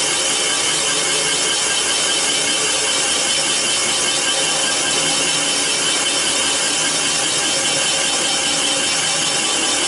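Comec CNC cylinder boring machine's boring bar cutting an iron engine block's cylinder bore at 300 RPM: a steady scraping cut with a constant high whine over it.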